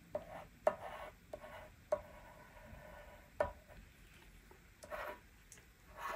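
Pencil drawing on card: faint, short scratching strokes with a few light taps of the pencil.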